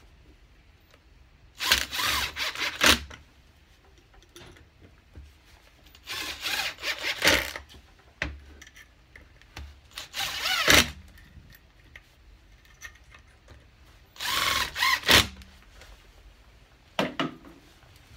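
Cordless Makita impact driver driving screws through a steel lathe faceplate into a cherry wood blank: four bursts of a second or so each of motor whine with rapid hammering, then two brief blips near the end as the last screw is seated.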